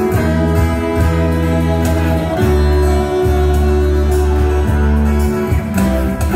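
Live band playing an instrumental passage, with a saxophone playing long held notes over bass and a steady band backing.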